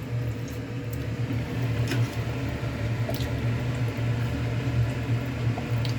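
A steady low mechanical hum, with a few faint clicks about one, two and three seconds in.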